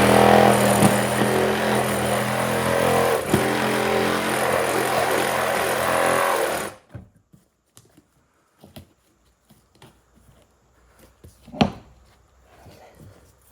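Reciprocating saw running and cutting through wooden door framing for about seven seconds, then cutting off suddenly. A few faint knocks follow, with one sharp tap near the end.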